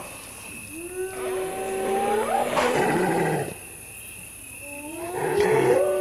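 An animal calling: two long drawn-out calls, each holding a mostly steady pitch, the first starting about a second in and the second near the end.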